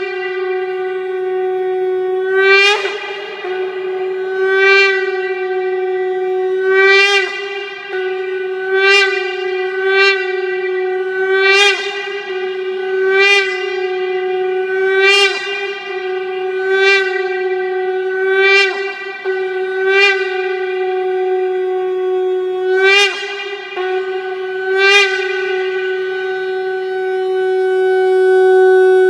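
Shofar blown in a long series of blasts on one steady note, each re-sounded with a sharp, brassy attack about every two seconds, ending on a long held note.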